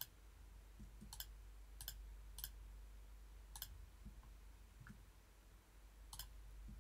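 Computer mouse clicking faintly, about six separate clicks at irregular intervals: edges being picked one at a time in CAD software.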